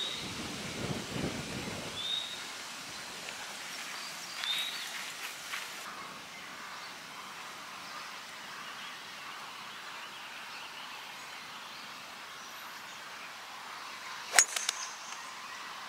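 Open-air ambience with a few short bird chirps in the first seconds, then near the end a single sharp crack of a golf club striking the ball, the loudest sound, followed by a couple of lighter clicks.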